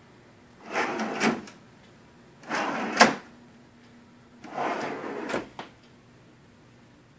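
Wooden glide-around corner-cabinet pull-out shelves sliding on their runners three times, each slide ending in a sharp knock as the shelf stops; the knock about three seconds in is the loudest.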